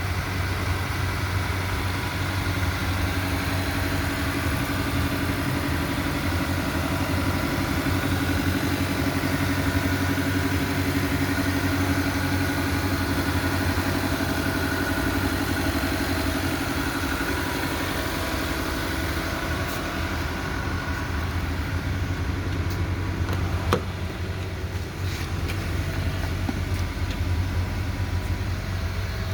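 Car engine idling steadily, a constant low hum, with a few sharp clicks in the second half.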